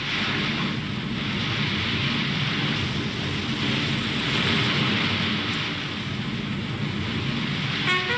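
Steady rush of wind and sea at a ship's side over a low, uneven rumble. Just before the end a series of stepped pitched tones begins.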